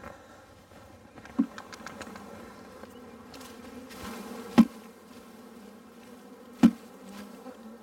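Honey bees buzzing steadily as a package of bees is shaken out into a hive body. Three sharp knocks, one about a second and a half in and two more a few seconds apart later, sound as the plastic package cage is rapped against the hive to dislodge the bees.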